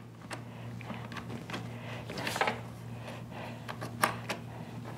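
A few light clicks and taps from the buttons, port cover and plug of a small Bluetti portable power station being pressed and handled, over a steady low hum.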